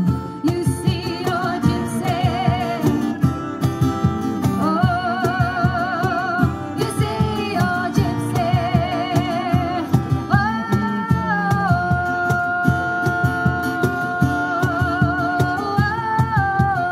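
Live acoustic music: a woman sings with a wavering vibrato over a strummed acoustic guitar, with a cajón keeping a steady beat. About ten seconds in she holds one long note.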